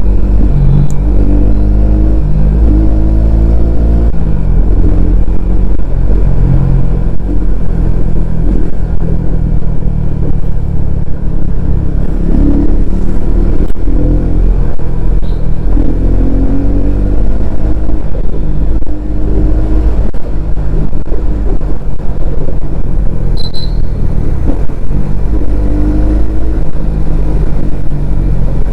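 Bajaj Pulsar N250's single-cylinder engine and exhaust running loud, the note rising and falling repeatedly as the throttle is worked and engine speed changes, over a heavy low rumble.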